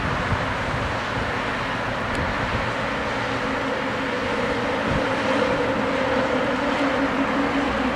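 A train running past: steady rolling noise with a low hum that grows stronger about halfway through.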